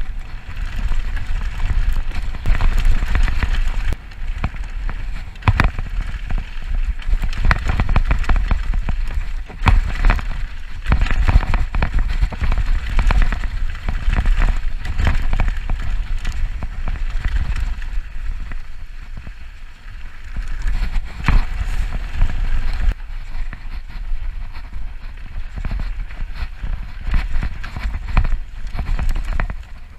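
Downhill mountain bike descending a dry, dusty dirt trail: wind buffeting the camera microphone as a constant low rumble, tyres rolling over loose dirt and stones, and the bike rattling and knocking over bumps.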